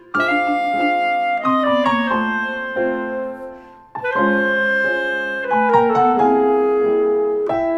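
Background music on piano and keyboard with a woodwind-like tone, playing held notes that step downward in runs; a new phrase starts about four seconds in.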